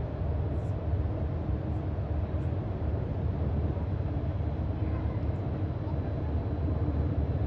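Steady low rumble of outdoor background noise, heaviest in the bass and flickering unevenly, like wind on the microphone or distant traffic.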